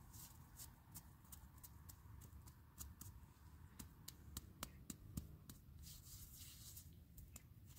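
Faint crunching of snow being pressed and shaped by hand into a small snowman: a scatter of light, irregular clicks and crackles.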